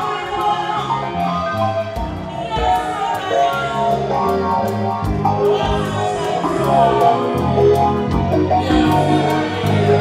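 Gospel band playing live: drum kit keeping a steady beat under bass and electric guitar, with a voice singing over parts of it.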